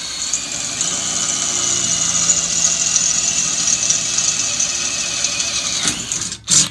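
DeWalt brushless cordless drill running under load, boring into 1/8-inch stainless steel plate, its steady whine slowly dropping in pitch. It stops about six seconds in, followed by a brief loud noise.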